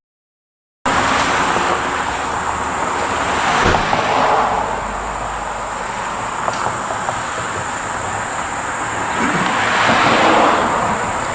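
2002 SVT Lightning's supercharged 5.4-litre V8 running, a steady rushing noise that swells about four seconds in and again near the end.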